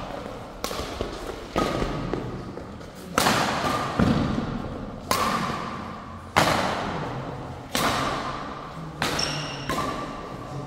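A badminton rally in an echoing hall: rackets strike the shuttlecock about nine times, roughly once a second, each hit ringing on in the reverberation. Short squeaks, likely shoes on the court, come in between the hits.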